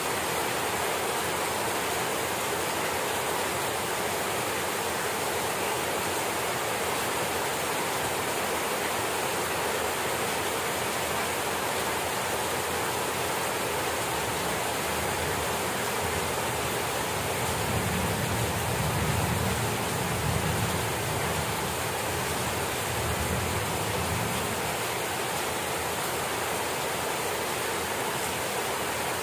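Steady downpour of rain, a dense, even hiss. In the second half a low rumble swells for several seconds and then fades.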